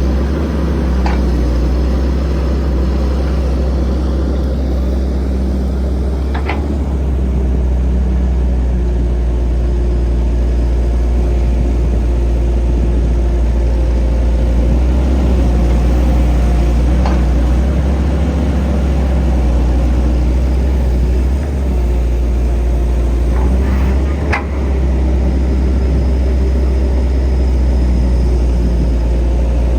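Heavy diesel engines of an excavator loading a dump truck running steadily with a deep hum. A few short sharp knocks sound over the span.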